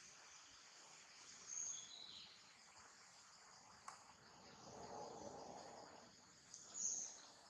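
Faint outdoor ambience: insects droning steadily at a high pitch, with a few short high chirps about one and a half seconds in and again near the end.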